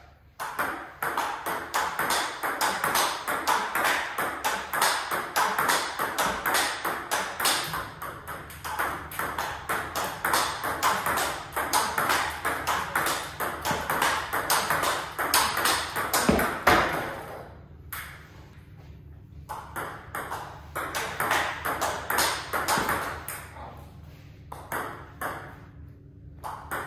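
Table tennis rally: the ball cracks off paddles faced with boosted Hurricane 3 Neo rubber and clicks on the table in a quick, steady rhythm of forehand loop drives. The rally breaks off briefly twice in the second half.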